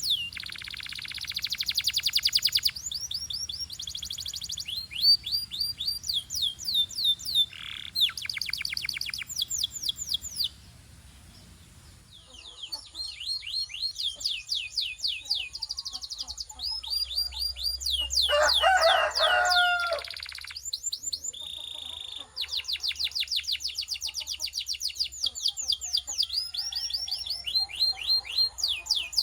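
Canaries singing in fast trills of rapidly repeated notes, with a short pause about ten seconds in. A lower-pitched call breaks in briefly around eighteen seconds in.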